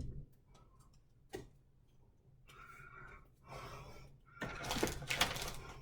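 A single click, then rustling and clattering in several short stretches, growing louder near the end, as food packages and containers are handled and pulled out of a refrigerator.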